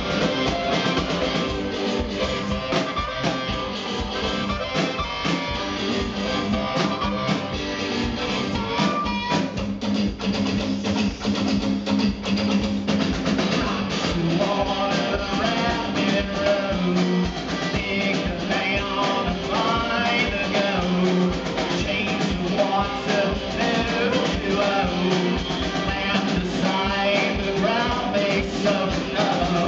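Live rock band playing: electric guitar over a drum kit, with a wavering lead line coming to the fore about halfway through.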